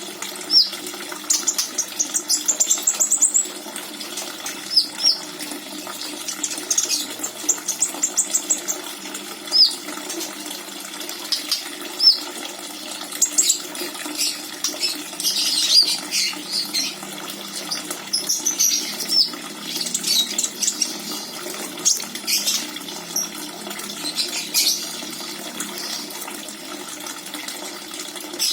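Konin bird calling: thin, high chirps and quick rapid-fire trills at irregular intervals, over a steady background of running water.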